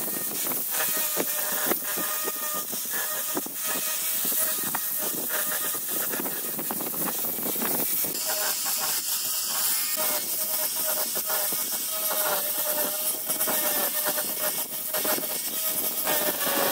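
Angle grinder fitted with a cylindrical sanding drum running with a steady whine, sanding curved wooden edges; a gritty hiss rises and falls as the drum presses on and lifts off the wood.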